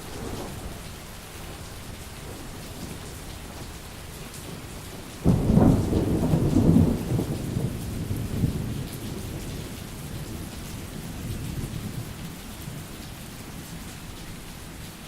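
Steady rain falling, with a crack of thunder about five seconds in that rumbles loudly for a couple of seconds and then rolls away slowly.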